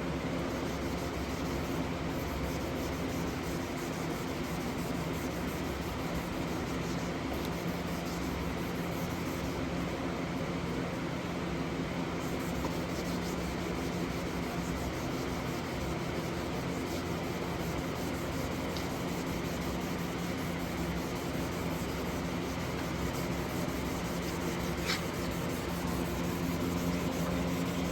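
1000 grit wet sandpaper rubbed back and forth by hand on a plastic headlight lens, a steady wet scrubbing, with a steady low hum underneath.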